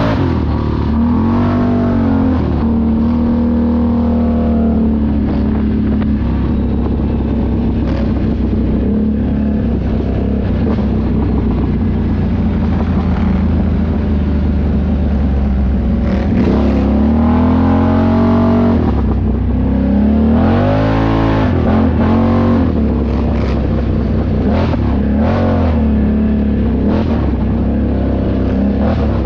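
ATV engine running steadily under riding, revving up and dropping back several times, with the biggest throttle swings in the second half.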